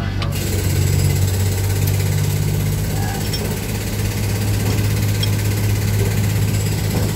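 An engine idling steadily, with a constant low hum and a light rattle over it.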